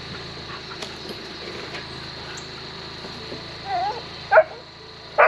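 German shorthaired pointers: one short whine, then a sharp bark about four seconds in and another right at the end, over a steady low hum.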